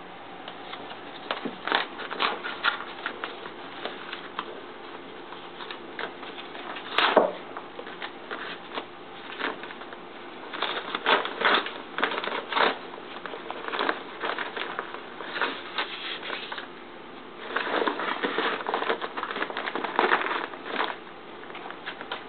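Paper padded mailer envelope being torn open and handled by hand: irregular crinkling, tearing and rustling in spells with pauses between, and a sharp click about seven seconds in.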